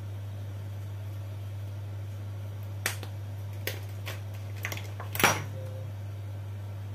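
Plastic spice jar being handled and its flip-top cap snapped open: a few sharp clicks over about two and a half seconds, the last the loudest, over a steady low hum.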